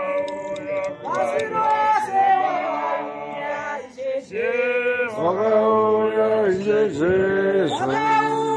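Male voices singing an unaccompanied church hymn or chant, in long held notes with short breaks between phrases.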